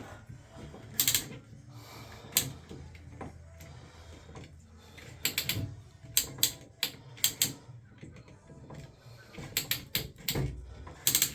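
Irregular sharp clicks and light knocks from small parts and hand tools being handled during a shower valve repair, about a dozen in all, some in quick clusters.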